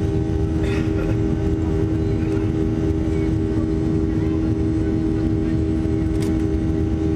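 Steady cabin drone of a Boeing 737-400 in its climb-out, its CFM56-3 turbofan engines running at climb power, with a constant low hum over the rumble.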